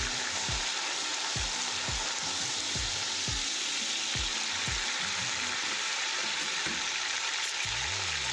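Sliced tomatoes and browned onions frying in hot oil in a cooking pot: a steady sizzle.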